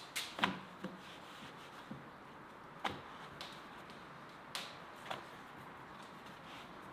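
A thin sheet of rolled dough being laid on a floured wooden board and unfolded by hand: soft rubbing of dough and hands on the wood, with several light taps.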